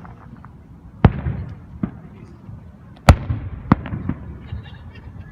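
Fireworks going off: a series of sharp bangs, each with a rumbling tail. The loudest comes about three seconds in, with a couple of smaller bangs close after it.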